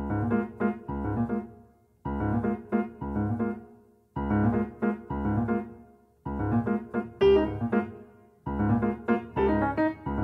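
Background music: slow solo keyboard, most likely piano, playing phrases of notes that ring and fade away, a new phrase starting about every two seconds.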